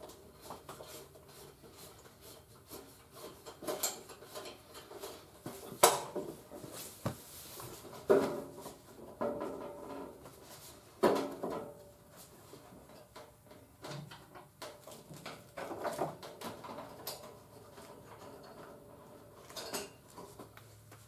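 Irregular clunks, knocks and rubbing from a steel car fender being handled and fitted against the body, with a few sharper knocks about six, eight and eleven seconds in.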